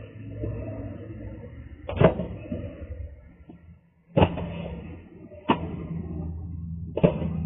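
Four sharp knocks, the first about two seconds in and the rest spaced a second or two apart, over a low steady hum.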